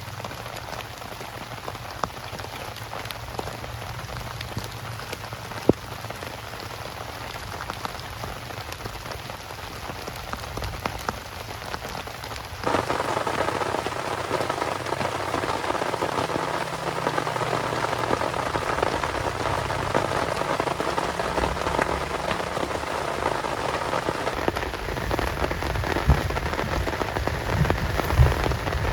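Heavy rain falling steadily, with scattered louder single drops. About halfway through, the rain abruptly becomes louder and fuller.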